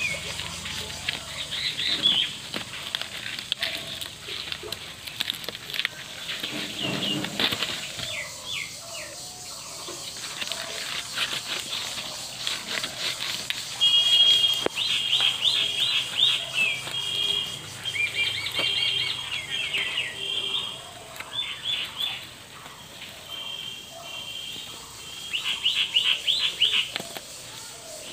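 Small birds chirping over and over in short repeated phrases, with the crinkle and rustle of banana leaves being handled and tied around it.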